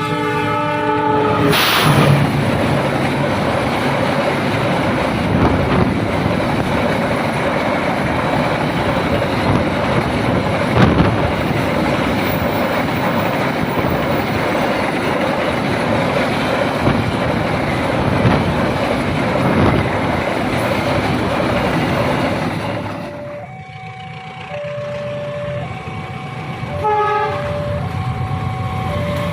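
An Indonesian locomotive's horn ends with a chord of steady tones in the first second or two. The train then rolls past with a loud, steady rumble and wheel clatter for about twenty seconds. As it fades near the end, a level-crossing warning alarm sounds, two tones alternating about once a second.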